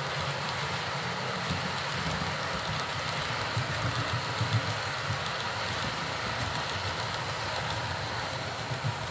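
Model HST train running along the layout track: a steady hum and rumble from its motor and wheels on the rails.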